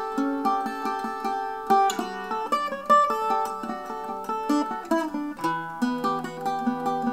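Handmade mandola with an internal exponential horn and an unbraced spruce soundboard, its four double courses of strings picked with a flatpick in a quick run of notes, shifting to a lower chord about five seconds in.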